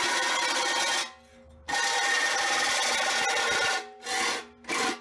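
DeWalt reciprocating saw cutting a slot into rusted steel, the blade rasping through the metal. It stops about a second in, starts again for about two seconds, then gives a few short bursts near the end.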